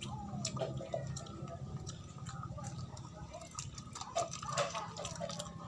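Close-up eating sounds: wet mouth clicks and smacks while chewing, with the soft handling of a banana being peeled, over a steady low drone.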